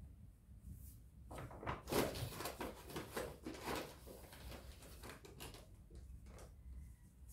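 Kitchen handling noises: a run of soft knocks, taps and rustles from about a second and a half in to about four seconds, then a few lighter taps.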